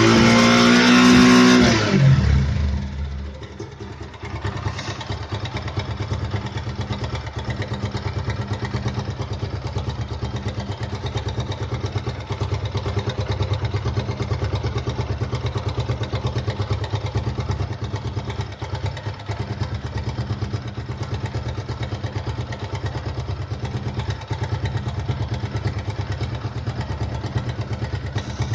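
Suzuki Gixxer 155 single-cylinder engine revved at the start, its revs falling away over about two seconds, then idling steadily. It is being run to check for timing chain rattle.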